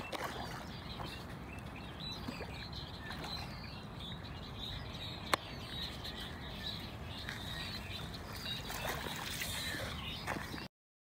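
Outdoor ambience with birds chirping steadily in the background. There is one sharp click about five seconds in, and the sound cuts off suddenly shortly before the end.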